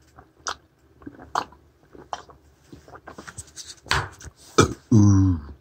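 A few scattered light clicks and knocks, then a man's short voiced sound without words near the end.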